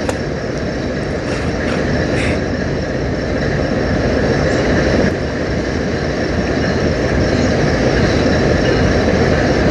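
Freight train cars (autoracks and boxcars) rolling past close by: a loud, steady rumble and rush of steel wheels on the rails.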